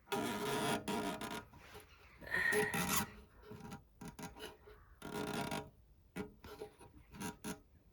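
Rasping, scraping strokes of metal being worked while a kerosene hurricane lamp is relit: three longer strokes, then a few short scrapes near the end.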